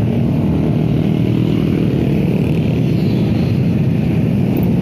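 Yamaha Jupiter MX motorcycle engine running steadily while riding at cruising speed, under a constant rush of wind and road noise.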